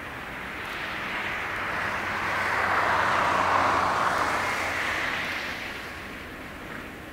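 Distant jet airliner roar swelling and then fading as a plane rolls past along the runway, over a faint steady low hum.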